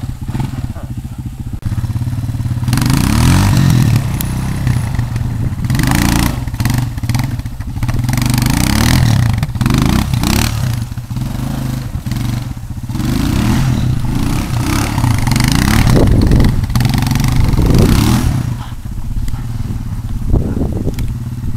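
Four-wheeler ATV engine revving hard again and again, its pitch rising and falling as the quad spins and slides in the snow.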